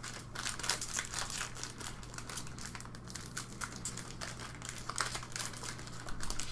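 Foil wrappers of hockey card packs crinkling and crackling as the packs are handled and torn open, a steady run of small crackles.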